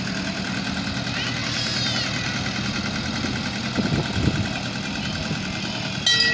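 An engine running steadily at idle, with people's voices over it and a sudden louder sound near the end.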